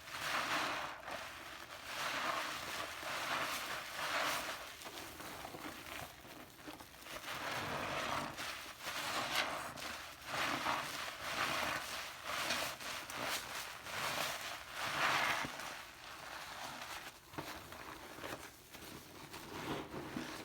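Crackling and rustling from a material being worked by hand, in uneven swells every second or so.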